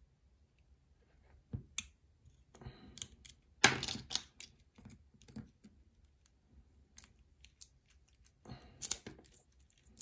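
Irregular metallic clicks, scrapes and rattles of a key being slid into a five-pin brass lock cylinder and turned to lock it back up, with a short flurry of clicks around the middle and another near the end.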